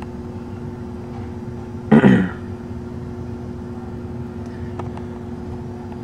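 Steady low machine hum with a couple of fixed tones, broken by one short loud sound about two seconds in.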